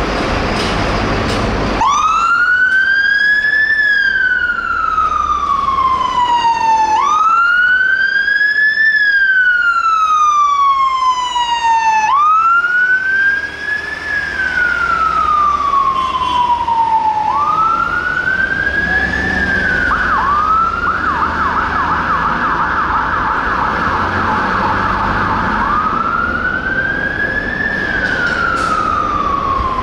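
Siren of a 2007 Mercedes-Benz Econic aerial ladder platform fire engine on an emergency turnout. About two seconds in it starts a wail that climbs for about two seconds and falls for about three, over and over. About twenty seconds in it switches to a fast yelp for several seconds, then goes back to the wail, with the truck's engine rumbling underneath.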